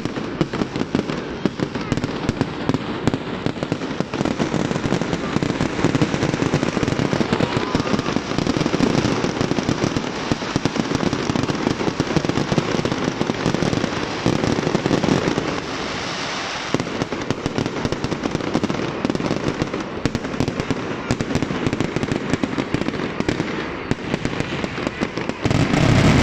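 Fireworks display going off: a dense, continuous barrage of rapid bangs, louder near the end.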